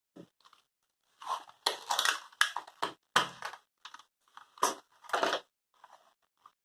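Irregular clicks, taps and scrapes of hands working on an open laptop, with a cluster of sharper clicks in the middle and a few faint ones near the end.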